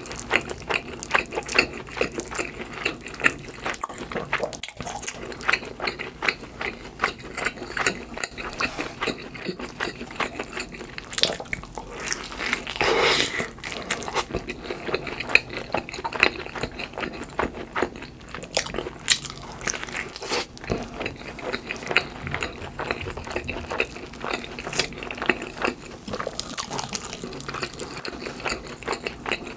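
Close-miked chewing of cheese pizza with a crisp crust and a topping of mashed avocado: rapid crunchy clicks mixed with wet, squishy mouth sounds, with a louder crunch about thirteen seconds in.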